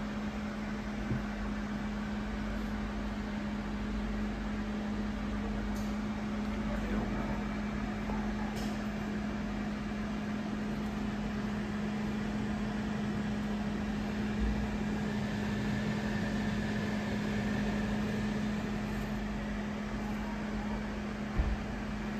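Steady mechanical hum of room ventilation, holding one constant low tone over a rushing background, with a few soft knocks, the clearest one near the end.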